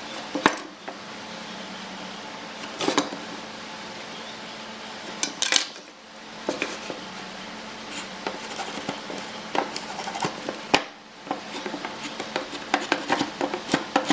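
Hand tools clinking and knocking on a wooden workbench as a steel square, a pencil and a marking gauge are set down and picked up, a few separate knocks, then a quick run of small clicks near the end as the marking gauge is worked on a pine board.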